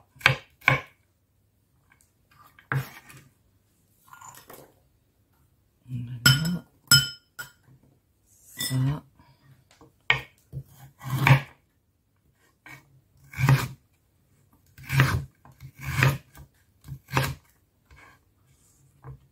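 Chef's knife cutting through a raw carrot and knocking on a wooden cutting board: single cuts every second or two with pauses between. Around six to seven seconds in, two cuts carry a brief metallic clink.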